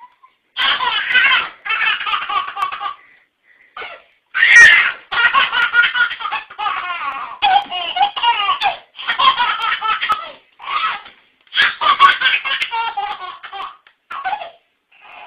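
A baby belly-laughing in repeated fits, with short breaks for breath between them and a sharp squeal about four seconds in.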